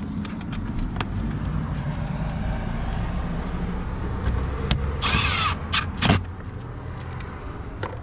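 Power screwdriver whirring briefly about five seconds in while driving in the trim panel screws, with small handling clicks over a steady low background hum.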